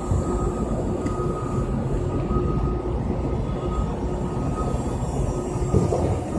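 Powered pallet jack driving across a concrete floor: a steady rumble of wheels and drive with a faint steady whine.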